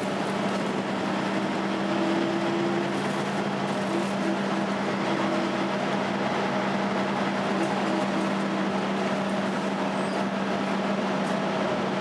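Volvo B10BLE bus on the move, heard from inside the saloon: its engine cooling fan 'hoovering', a steady vacuum-cleaner-like drone held at one pitch, with a fainter higher whine that comes and goes over the running of the bus.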